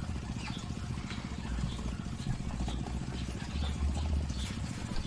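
A low, steady motor rumble, with faint scattered ticks above it.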